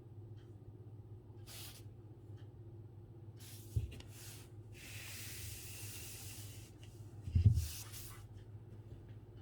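Calligraphy brush dragging across paper in separate strokes, each a short scratchy hiss, one longer stroke in the middle. Two dull knocks on the desk, the louder one near the end.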